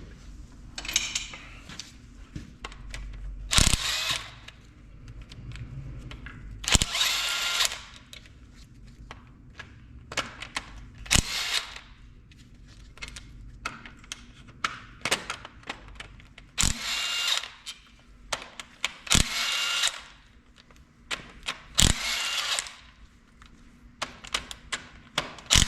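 Hand-held power tool run in about eight short bursts while taking bolts out during an engine teardown, with sharp metallic clicks and knocks between the bursts.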